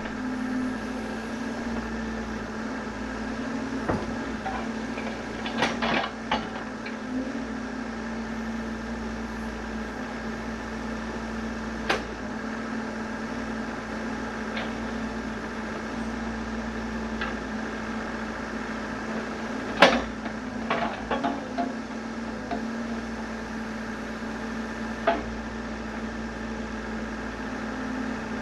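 Excavator engine running with a steady drone, broken by scattered sharp knocks and clanks, the loudest about two-thirds of the way through.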